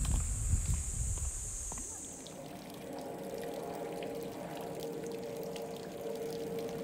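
Wind buffeting the microphone for the first two seconds, over a steady high hiss. Then, after a cut, a steady trickle of water pouring from a bamboo spout into a garden pond.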